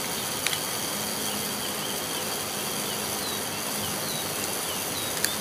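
Two light clicks of a screwdriver tip against the tin casing of a fan's swing (synchronous) motor as its gearbox cover is pried open, over a steady background hiss with faint high chirps.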